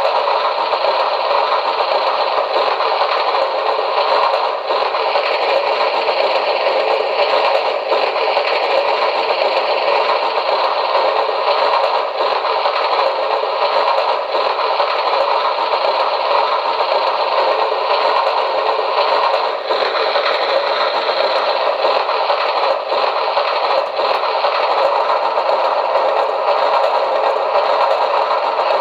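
QSI Maxx Traxx small-steam sound effect of a locomotive tender being filled with coal: a steady rushing clatter of pouring coal, played through a small speaker with little bass.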